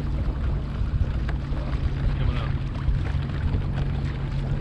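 Sea-Doo Fish Pro personal watercraft's engine idling, a steady low hum, with water sloshing and splashing around the hull.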